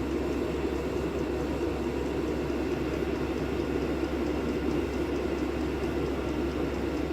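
Diesel air heater running steadily, its combustion blower fan giving an even whirring rush with a low hum underneath.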